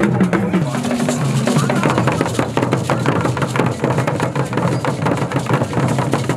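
Traditional Ewe drumming: several drums struck with wooden sticks in a fast, dense rhythm, with voices over it.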